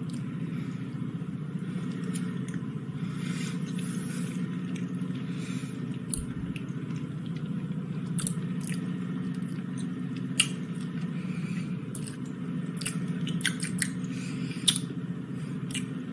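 Close-up mouth sounds of someone biting into and chewing a soft, frosting-filled white chocolate candy bar: scattered small wet clicks and smacks, a couple of them sharper, over a steady low hum.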